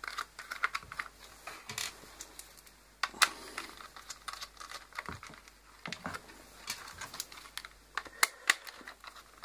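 Plastic housing and control panel of a multicooker being opened and handled by hand: scattered sharp clicks and taps throughout, with a few louder clicks about three seconds in and again near the end.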